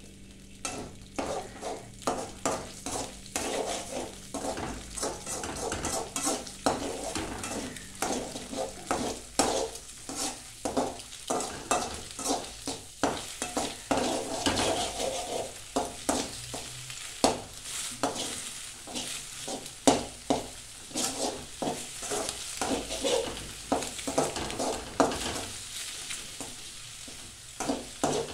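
Eggs frying in an aluminium kadai while they are stirred and scrambled with a metal spoon: repeated scrapes and knocks of the spoon against the pan over a steady sizzle.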